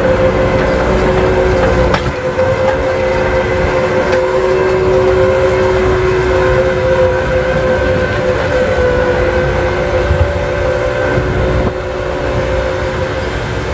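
ROPA Maus sugar beet cleaner-loader running steadily as it picks up and cleans beets, a steady whine over a low rumble. It gets a little quieter about two seconds in and again near the end.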